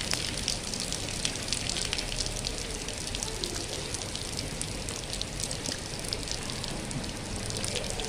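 Rain falling on concrete pavement and broad plant leaves: a steady hiss with many small, sharp drop ticks through it.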